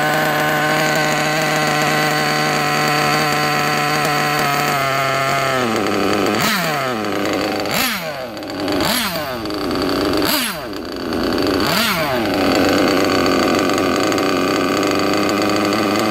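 Nitro glow engine of a 1/8-scale RC buggy running with a steady high pitch. About six seconds in its speed drops and swings down and back up five times, then it settles to a steady, lower idle.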